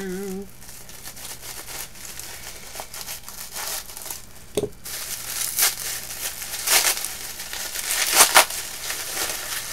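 Gift packaging being torn, pulled apart and crumpled by hand, irregular bursts of crinkling and ripping from heavily taped wrapping, busiest and loudest in the second half, with one sharp click near the middle.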